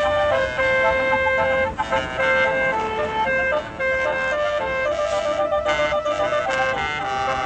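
A tourist bus's Basuri telolet horn playing a tune: a run of stepped, held horn notes that change pitch every fraction of a second.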